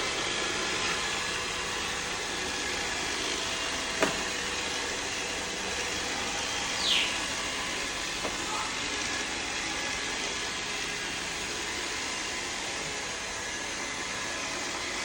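Roomba robot vacuum running with a steady whirring hiss. A sharp click about four seconds in and a short falling whistle about seven seconds in.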